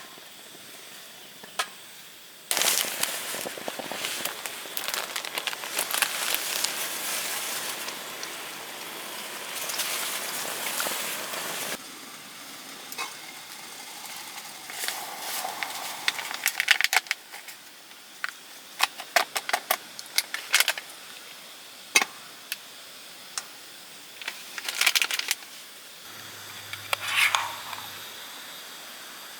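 Food sizzling in a hot pan for about ten seconds, then stopping, followed by scattered clicks and scrapes of a utensil stirring in the pan.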